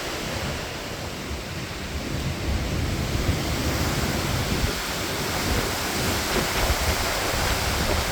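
Strong storm wind rushing steadily and gusting against a phone's microphone, with a low buffeting rumble.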